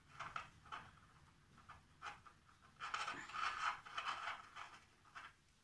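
Hands kneading and folding a piece of polymer clay: faint, irregular rubbing and rustling strokes, busiest around the middle.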